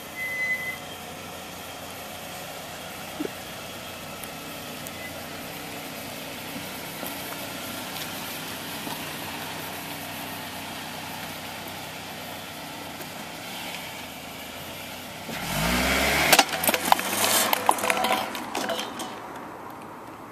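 A vehicle engine running steadily, then about fifteen seconds in it revs up with a rising pitch, joined by a burst of sharp cracks and clattering knocks lasting a few seconds.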